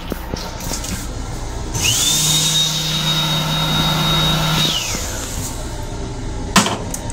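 A small electric motor in a train restroom's sink unit spins up with a quick rising whine, runs steadily at one pitch with a low hum for about three seconds, then winds down. A sharp clack about six and a half seconds in as the toilet seat is handled, over the steady running noise of the train.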